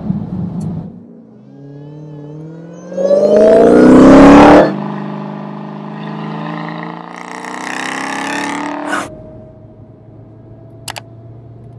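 2020 Dodge Charger SRT Hellcat Widebody's supercharged V8 accelerating hard: the engine note climbs in pitch, is loudest about three to four seconds in, then runs as a steadier drone. A short crack about nine seconds in, after which the engine drops to a quieter steady sound.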